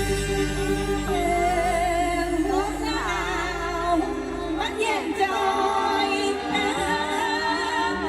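Isan folk-pop music: a singer holds long, wavering melodic lines over band accompaniment. The low bass drops out about five seconds in.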